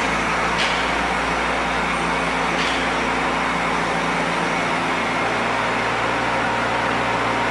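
Bobcat 418 mini excavator's small diesel engine running steadily, with a couple of faint clicks.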